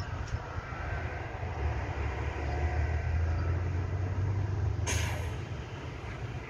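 Road vehicles crossing a railway level crossing: a bus and trucks running with a low engine rumble. About five seconds in comes a short, sharp hiss of truck air brakes.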